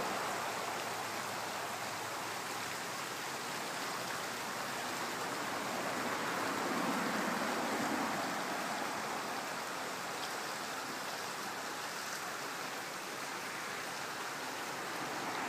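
Shallow creek water running over rocky riffles: a steady rush of flowing water that swells a little about halfway through.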